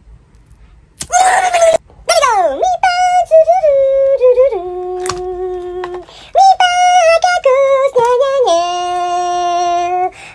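A high, voice-like tune on the soundtrack: a short noisy squeal, a quick falling slide, then a three-note descending phrase held on steady notes, played twice.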